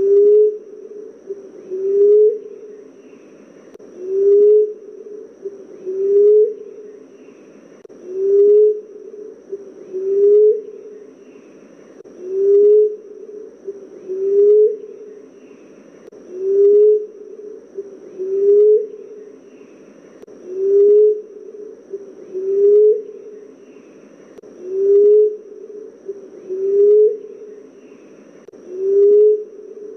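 Common emerald dove cooing. It gives a low, soft coo that rises a little and lifts briefly at its end, repeated about every two seconds.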